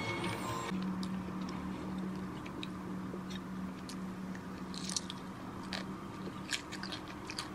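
A person chewing food with small crunchy mouth sounds and scattered soft clicks, over a steady low hum. Background music cuts off about a second in.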